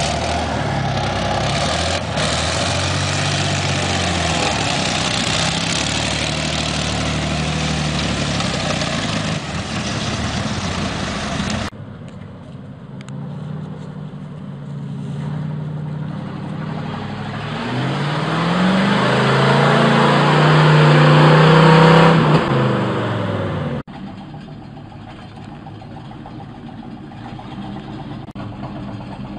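Heavy vehicle engines in three cut-together stretches. First an amphibious tracked vehicle's engine runs under a steady rush of noise as it ploughs through river water. About twelve seconds in, an off-road truck's engine revs up in the forest mud, rising in pitch and getting loud, then a firewood-loaded truck's engine runs more quietly as it labours in the mud.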